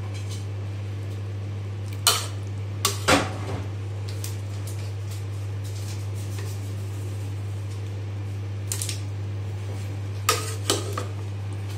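Metal spoon stirring broth in an aluminium cooking pot and knocking against its side: a sharp clink about two seconds in, a close pair around three seconds, and a few more near the end, over a steady low hum.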